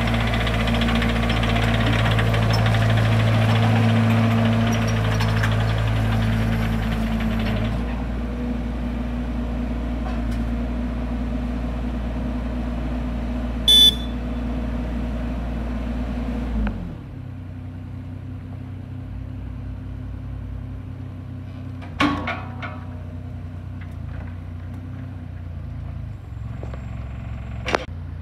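Eurocomach ES28.2ZT mini excavator's diesel engine running steadily as the machine tracks and works its arm, its sound dropping in level about eight seconds in and again a little past halfway. A short sharp click with a high tone comes a little before halfway, and two sharp metallic knocks come near the end.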